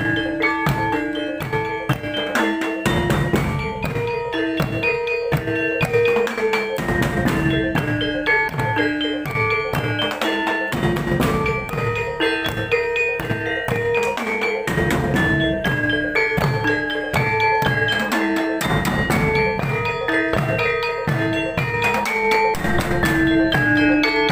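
A Javanese reyog gamelan ensemble playing: bronze saron metallophones struck with mallets in quick repeated melodic notes over kendang hand drums whose strokes fall in pitch, with a steady held tone underneath.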